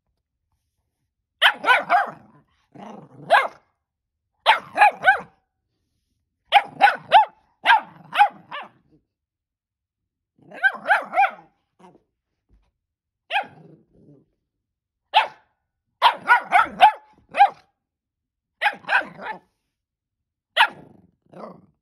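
A puppy barking in short runs of one to five barks, with pauses of a second or two between the runs.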